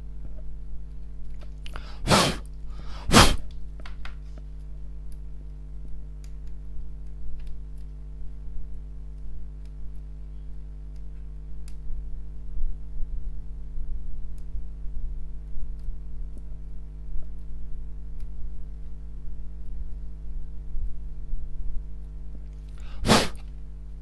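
A wooden stick scraping crumbled coating off a circuit board, faint scratchy ticks over a steady low hum. Three short, loud bursts of breathy noise break in: two about two and three seconds in, and one near the end.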